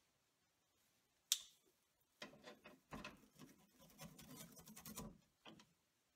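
Faint handling of stiff insulated wires in a metal breaker panel: a sharp click about a second in, then about three seconds of scraping and rustling as the wires are pushed and bent into place, and a short click near the end.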